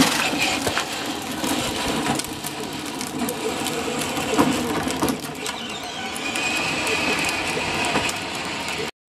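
Electric motor and gearbox of a ride-on toy Jeep running as it drives off, a steady mechanical hum with some rattling clicks. It stops abruptly near the end.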